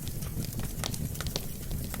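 Wood fire burning: a steady low rumble of flames with several sharp crackles and pops scattered through it.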